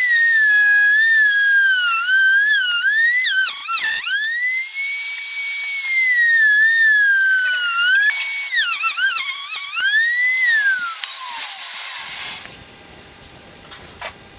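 Table-mounted wood router running at a high whine that sags and recovers in pitch as the bit cuts slots into wooden boards, with sharp dips under heavier load. It cuts off about twelve seconds in.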